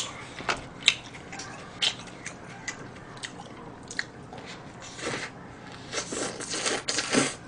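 A person biting into and chewing a fried chicken burger: a string of short clicks and crunches, busier in the last couple of seconds.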